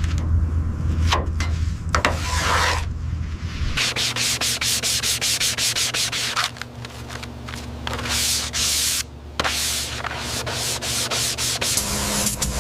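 Sanding: quick repeated rubbing strokes of abrasive on a surface. A steady low hum underlies the first few seconds.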